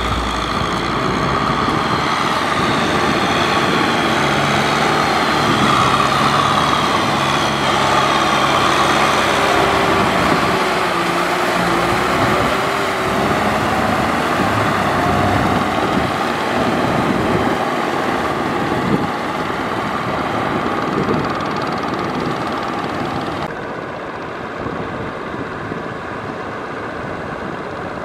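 Kubota M6040SU tractor's diesel engine running steadily under load while it drags a rotary tiller through flooded paddy mud. Near the end the sound turns quieter and duller.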